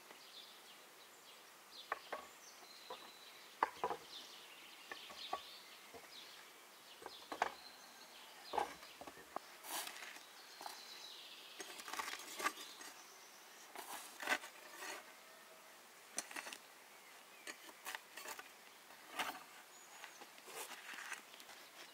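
Dishes and cutlery clinking and tapping lightly at irregular intervals, with faint bird calls in the background.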